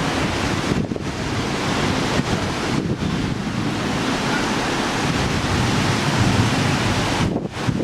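Storm wind buffeting the microphone: a loud, steady rushing roar that drops out for an instant a few times.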